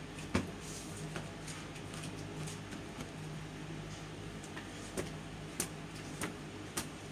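Scattered light knocks and thumps from a stuffed-toy fight, about eight in seven seconds, over a steady low room hum.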